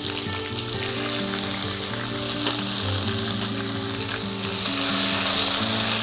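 Ginger paste and whole spices sizzling in hot oil in a kadai: a steady frying hiss that swells slightly about five seconds in. Soft background music with held notes plays underneath.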